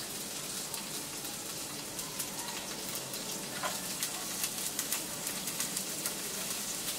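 Chopped garlic and shallots sizzling in a little cooking oil in a frying pan: a steady hiss with scattered crackles and pops.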